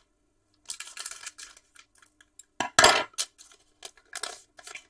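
Foil wrapper of a trading card pack crinkling and tearing as it is ripped open by hand, in several short bursts, the loudest about three seconds in.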